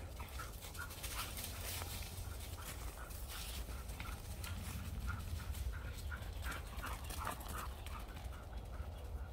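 Flat-coated retrievers panting in quick, even breaths, about three a second, while running, with scattered crunches of paws on dry leaves.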